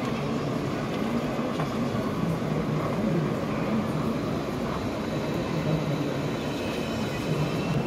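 Steady background hubbub of a busy exhibition hall: indistinct crowd voices and hall noise at an even level, with no single sound standing out.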